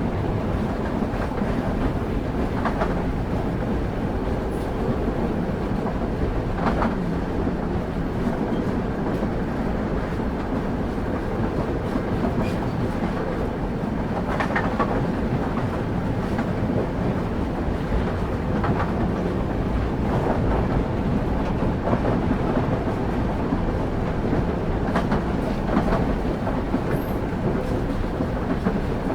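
Train ride heard from on board: a steady low rumble of the railway wheels on the track, with scattered faint clicks of the wheels over rail joints.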